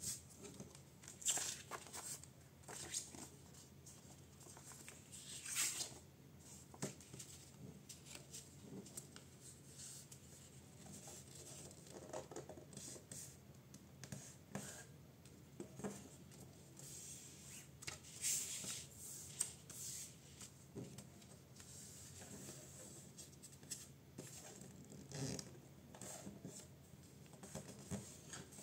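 A sheet of paper being folded by hand: irregular rustling and crinkling as fingers crease it and slide it over the table, with a few louder rustles.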